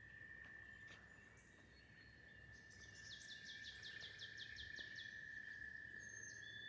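Faint dawn chorus: a steady high-pitched trilling drone throughout, with a songbird singing a quick run of about a dozen descending notes in the middle and a few faint chirps.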